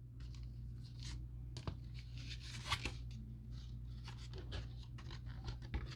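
Faint rustling, crinkling and light scraping of an opened plastic-and-cardboard blister pack as the cards and packs are taken out, with a few soft ticks, over a steady low hum.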